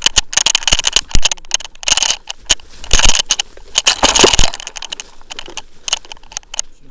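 Running footsteps crunching through dry leaf litter, with branches and brush scraping past and twigs crackling; busiest in the first four and a half seconds, then quieter.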